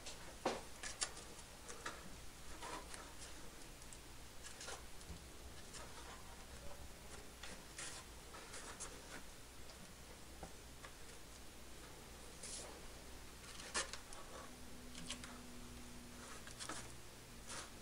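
Faint, scattered handling sounds: light clicks, taps and rubs as hands press foam fairing pieces onto a model plane's landing gear, over a steady low room hum.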